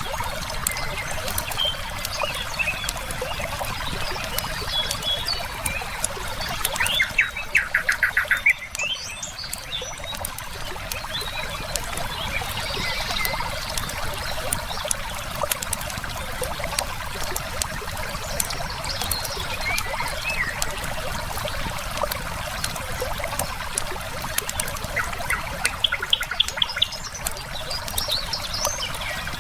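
Wood fire crackling with sharp pops over the steady rush of running river water, while birds chirp throughout. About seven seconds in, and again near the end, a bird gives a rapid, evenly paced trill, the loudest sound in the mix.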